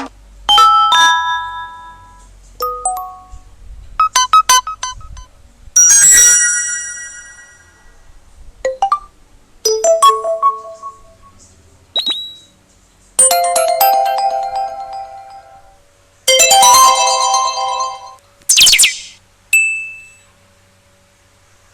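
Tecno smartphone stock alert tones played one after another: about ten short electronic chimes and jingles, each a second or two long with brief gaps between, one of them a quick sweep in pitch near the end.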